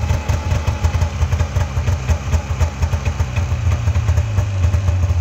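Polaris Indy snowmobile's two-stroke engine idling steadily with a fast low throb while it warms up.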